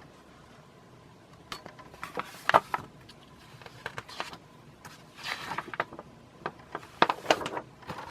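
A glossy paper catalog being handled and its pages turned: a few groups of rustles and sharp clicks of paper, with short pauses between them.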